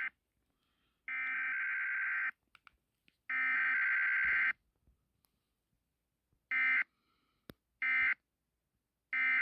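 Emergency Alert System SAME digital data bursts, a harsh electronic warble. Two long header bursts about a second apart come first, then, after a pause, three short end-of-message bursts about a second and a half apart, marking the end of the test.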